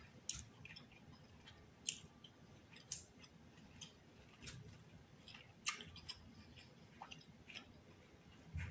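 Close-miked chewing of a mouthful of seafood, quiet overall, with a few short wet mouth clicks and smacks at irregular intervals.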